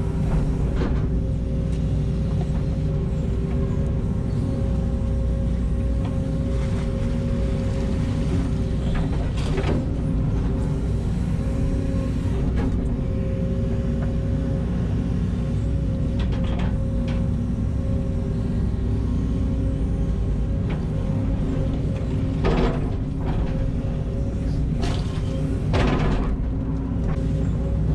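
Diesel engine of heavy earthmoving equipment running steadily, with a few short knocks or clanks along the way.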